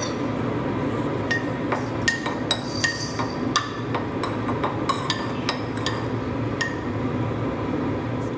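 A run of light clinks and taps of tableware, such as a cup or glass, about one or two a second, some with a short ring, over a steady low rushing noise.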